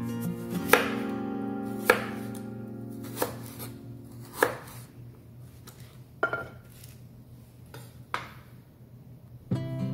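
Kitchen knife chopping Chinese broccoli (gai lan) stems on a wooden cutting board: single sharp cuts, about seven, spaced a second or so apart, over soft background guitar music.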